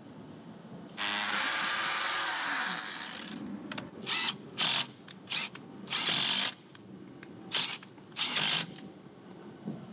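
Power drill running: one run of about two seconds with a falling whine under it, then a string of short trigger bursts.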